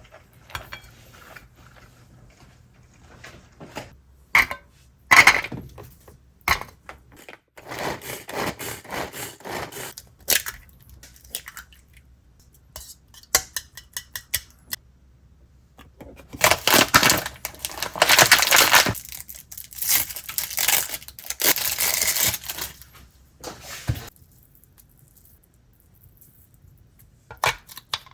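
Kitchen food-preparation sounds: utensils and dishes knocking and clinking, with a couple of longer stretches of noisy handling such as packaging being torn or food being stirred.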